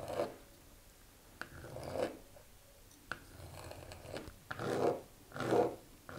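Hard-boiled eggs being peeled and cut up by hand: a string of soft crunching strokes about half a second long, with a few sharp taps between them.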